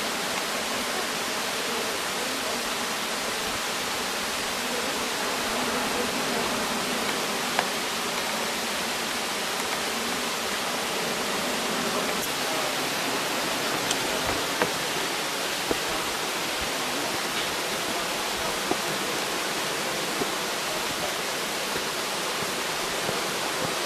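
Steady, even hiss of outdoor background noise, with a few faint clicks or taps.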